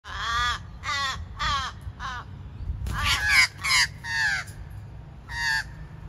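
Crows cawing over and over, about eight caws in two bouts with some overlapping, as they mob a barn owl.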